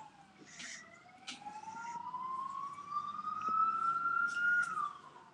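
Emergency vehicle siren wailing: its pitch dips at the start, rises slowly over about four seconds, then falls again near the end. A few small clicks sound over it.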